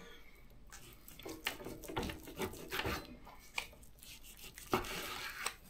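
Large kitchen knife slicing a steak off a piece of pork neck on a wooden cutting board: faint rasping strokes of the blade through the meat with a few light clicks, and a slightly louder scrape near the end.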